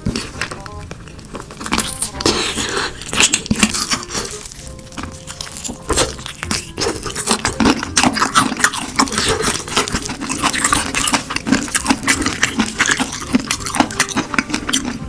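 Crispy fried chicken being bitten and chewed close to the microphone: many irregular crunches, over background music.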